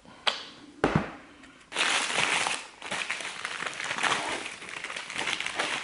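Two sharp clicks, then a paper takeaway bag crinkling and rustling steadily as a hand rummages inside it.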